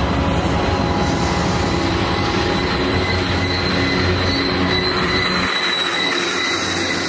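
Freight train of tank cars rolling past, with a steady rumble and clatter from the wheels on the rails and a thin, steady high squeal from the wheels on the curving track. The deep rumble thins out about five and a half seconds in.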